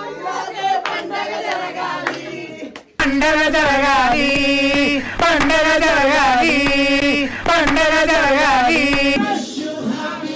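A song with sung vocals plays loudly, coming in suddenly about three seconds in over quieter music and voices, with a change in the music about nine seconds in.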